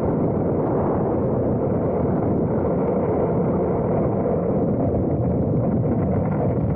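Electric ducted fan of an E-flite F-15 64mm RC jet running, picked up by a camera mounted inside the canopy as a loud, steady, muffled rushing noise with no clear whine.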